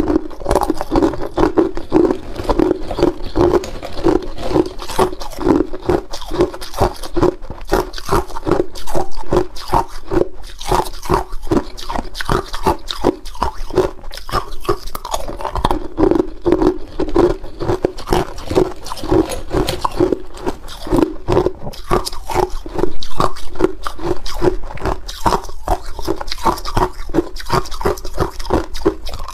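Hard clear ice cubes being crunched and chewed close to the microphone: a fast, unbroken run of sharp cracks and crunches.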